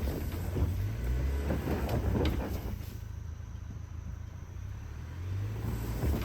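Ford Ranger Tremor pickup driving: a steady low engine hum with crackling tyre and road noise, louder in the first half and easing off in the middle.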